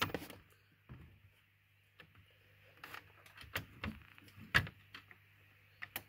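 A few light clicks and knocks as the second battery of a Mercedes R230 SL500 is connected, spread out and irregular, over a faint steady low hum.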